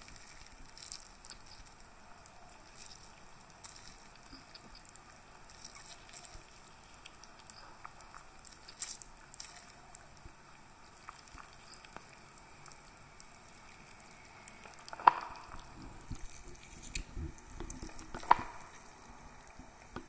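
Fingers squeezing and digging into halved grapefruit: a soft crackling and squelching of the juicy pulp, with two louder sharp snaps in the last few seconds.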